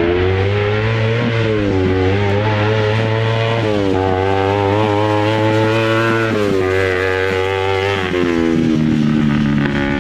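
Custom shifter off-road buggy's engine running hard as the buggy drives across a field. The engine note rises and falls several times with the throttle and settles lower near the end.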